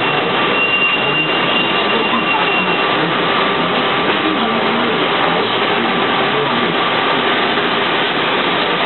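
Steady engine and cabin noise inside a city bus standing at a stop with its engine running, with a thin high tone through the first few seconds.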